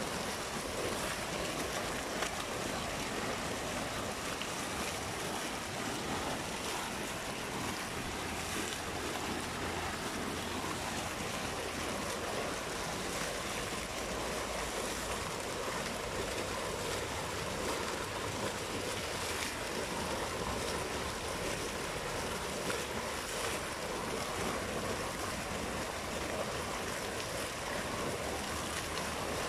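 Fountain water jets shooting up and splashing back into a stone basin, with spouts on the plinth pouring into it: a steady rushing splash.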